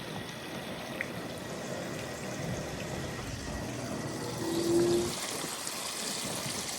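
Steady running water pouring over and through live crawfish as they are rinsed clean. About four and a half seconds in, a brief low steady hum sounds over it.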